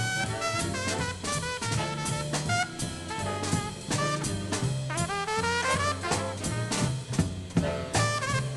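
Swing big band playing with an open trumpet soloing on top, bass and drum kit underneath. The trumpet holds long notes and smears several notes upward in pitch around the middle.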